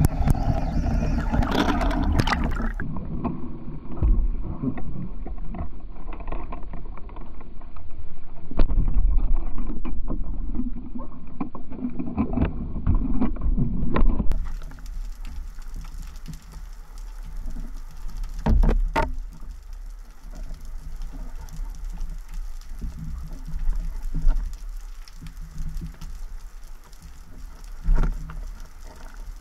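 Muffled underwater sound as heard by a camera in its housing: a low rumble of moving water with scattered clicks and knocks from the spearfishing gear, quieter for the last half.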